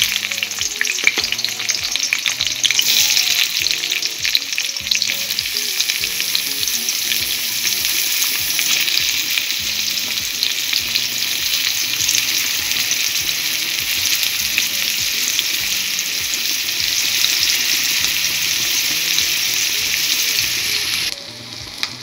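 Chopped onions sizzling loudly in hot oil in a kadai, stirred now and then. The sizzle cuts off suddenly about a second before the end.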